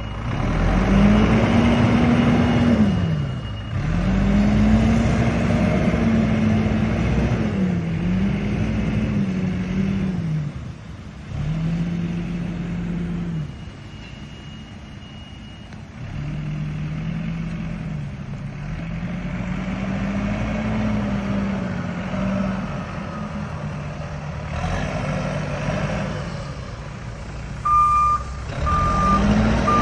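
Backhoe loader's diesel engine running, its revs repeatedly rising and falling as the machine works. Near the end a reversing alarm beeps in short even pulses.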